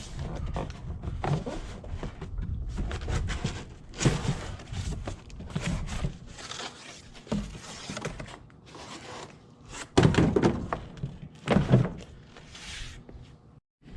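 Unboxing: cardboard and plastic packaging rustling and scraping while parts are lifted out, with a few thunks as pieces are set down or knocked, the loudest about 10 and 12 seconds in.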